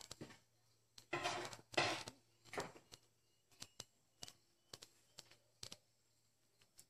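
Faint, scattered knocks and taps with a few short scraping noises, from hand work on a roof being put up: a man on a scaffold handling the roof timbers and sheets.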